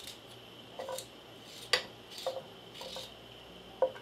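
Carrot sticks dropped one at a time into a pot of hot melted butter: a few short knocks against the pot, the sharpest a little under two seconds in, over a faint steady sizzle.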